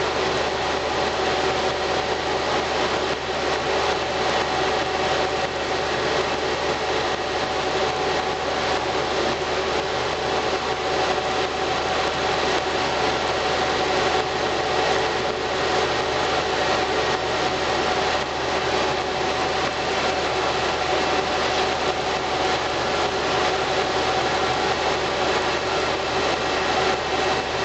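CNC machine with its spindle turning at 1500 rpm, running steadily: a constant hiss with several held tones, unchanging throughout.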